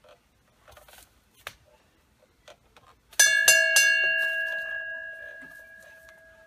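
A metal bell struck three times in quick succession, ringing on with a clear tone that slowly fades over about three seconds. A few light knocks come before it.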